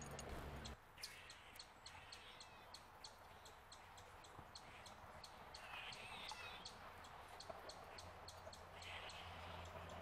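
Faint birds calling, in two short bursts near the middle and near the end, over many light, sharp ticks a few times a second.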